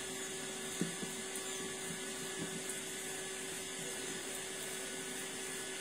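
Steady hum and hiss of a small motor running, with one faint constant tone; a light tap just under a second in.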